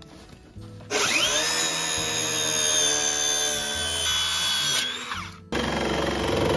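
Circular saw spinning up about a second in and cutting through a thick plywood board, then winding down near five seconds. A cordless Makita jigsaw then starts cutting the same board with a rapid, chattering stroke.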